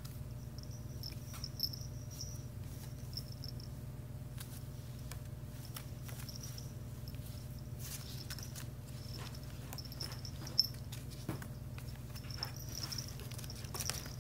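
A kitten's small collar bell jingling lightly on and off as the kitten rolls and paws inside a woven seagrass basket, with scratchy rustles and scattered clicks of claws on the weave. The sharpest click comes about ten and a half seconds in. A steady low hum runs underneath.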